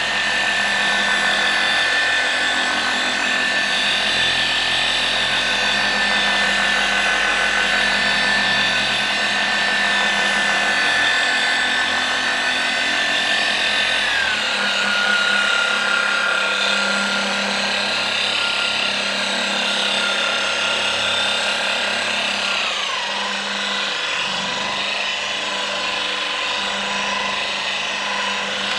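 Flex XFE 7-15 150 orbital polisher running free on car paint with a foam pad, held one-handed with no pressure: a steady motor whine. It drops in pitch twice as the speed is turned down, then begins to wind down right at the end.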